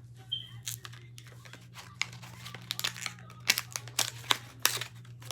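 Packaging of an egg putty crinkling and tearing as it is opened by hand, a run of irregular crackles and clicks.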